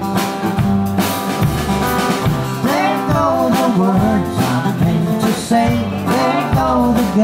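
Live country band playing, with plucked guitar and a steady bass line. From about three seconds in, a lead melody line comes in that bends and wavers in pitch.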